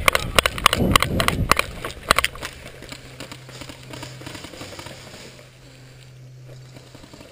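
A run of sharp clicks and pops, about three a second, over low rumbling for the first two seconds of an airsoft game. Then it drops away to a faint, steady low hum.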